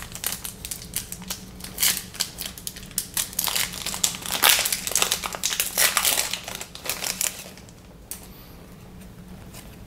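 A trading card pack's wrapper being torn open and crumpled by hand, an irregular crinkling and crackling that dies away after about seven seconds.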